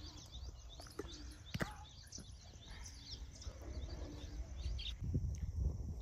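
Small birds chirping in quick, high twittering calls that stop about five seconds in, over a low wind rumble on the microphone. A couple of sharp clicks come in the first two seconds.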